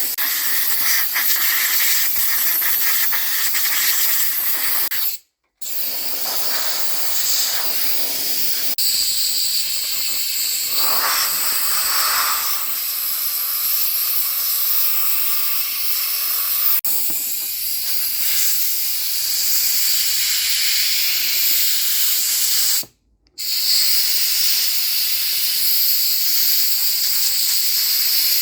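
Loud, steady hiss that cuts out abruptly twice.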